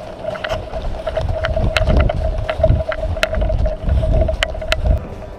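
Running footsteps in snow with sharp clicks of gear, while wind buffets the microphone in heavy low rumbles that come and go for most of the time. A steady mid-pitched hum runs underneath.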